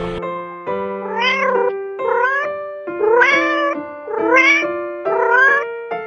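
Domestic cat meowing five times, about once a second, each call rising and then falling in pitch, over background music.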